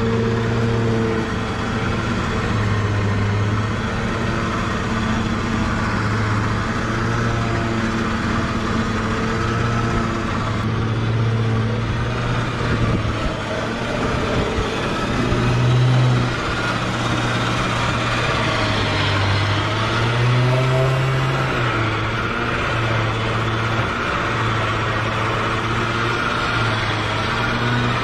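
Electric winch on a Ford Ranger winding in its cable to drag a stuck 4WD out of a creek crossing. The low motor hum shifts up and down in pitch in stretches of a second or two as the load on the line changes, with a brief rise in pitch about two-thirds of the way through.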